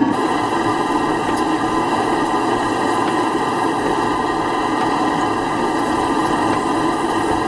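Scratch-built live-steam model walking beam marine engine running under steam and turning the paddle wheels directly, a steady mechanical running noise with a hiss and a few faint clicks.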